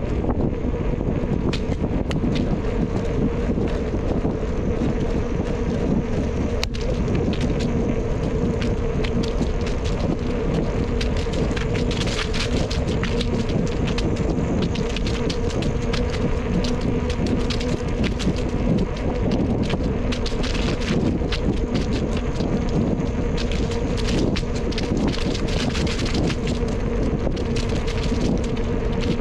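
Bicycle riding along a trail: steady wind rushing over the camera microphone, with tyre rolling noise, a faint steady hum and many small crackles.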